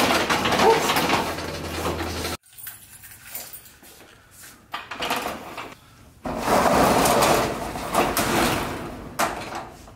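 Corrugated metal roll-up storage unit door rattling as it is pulled up, about six seconds in and lasting around three seconds, after a few clicks of a padlock being worked. The first two seconds hold loud handling noise with a low hum, ending in a sudden cut.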